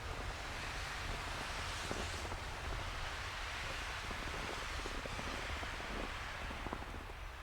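Snowstorm wind blowing in gusts that swell and ease, buffeting the microphone with a low rumble. Scattered faint ticks sound through it.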